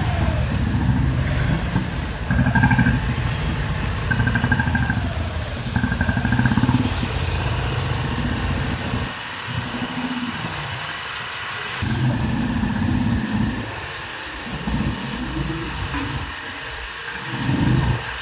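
A group of motorcycles and scooters riding slowly past at close range, their engines running and revving, easing off around the middle and swelling again. A few short high beeps sound in the first several seconds.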